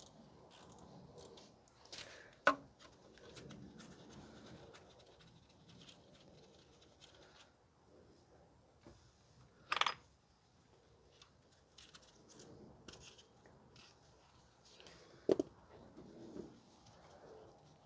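Wrench loosening the bolts of a truck's front hub actuator bracket: faint scraping and rubbing with three sharp clicks, the loudest and longest about ten seconds in.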